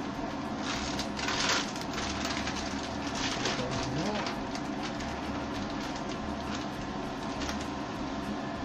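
Pre-cooked chicken pieces tipped from a plastic bag into a hot wok of curry paste: the bag rustles and the pieces land in the pan in noisy bursts about a second in and again around three to four seconds in. A steady mechanical hum runs underneath.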